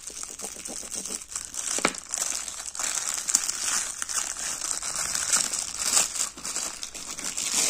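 Clear plastic packaging crinkling and rustling as hands open the bag of latex gloves and reach inside.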